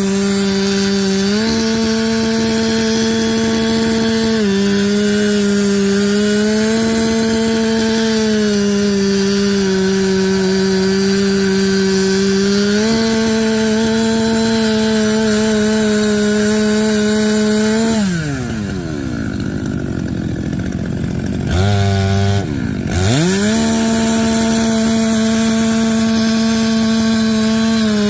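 Two-stroke chainsaw running at high revs, cutting into wood, its pitch stepping down and back up a few times as the chain takes load. About 18 seconds in the throttle is let off and the revs sink; about 23 seconds in it is revved back up to full speed.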